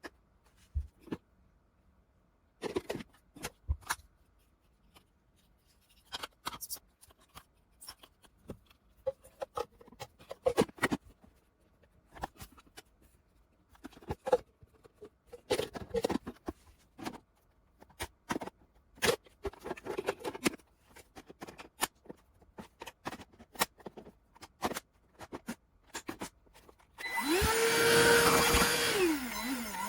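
Scattered clicks and knocks, then near the end a TEUMI cordless handheld vacuum switches on and runs with a steady whine, its pitch dipping briefly and rising again.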